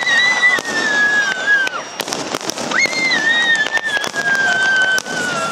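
Aerial fireworks display: repeated sharp bangs and crackling from bursting shells, with two long whistles that slide slowly down in pitch, one near the start and one from about three seconds in.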